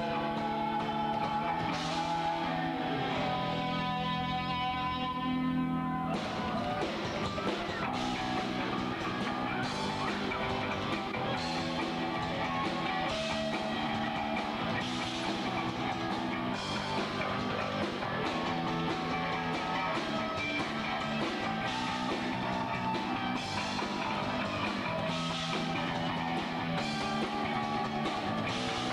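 Rock band playing live: held guitar chords ring for the first six seconds, then the full band comes in with drums and distorted guitar.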